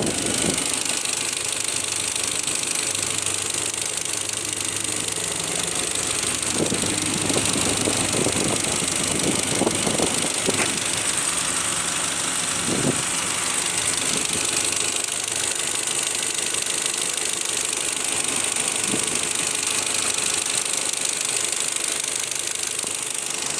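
Audi Q5 engine idling at operating temperature with a knock that appears once it is warm; the owner places it somewhere around the fuel rail or the exhaust manifold and cannot explain it.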